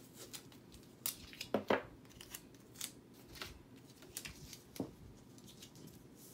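Scissors snipping and construction paper rustling: a string of short, sharp snips and crinkles, loudest about one and a half seconds in and again near the end.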